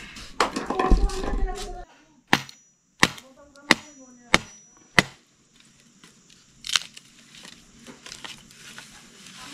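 Sharp chopping strikes on wood: five in a row about two-thirds of a second apart, then one more a couple of seconds later.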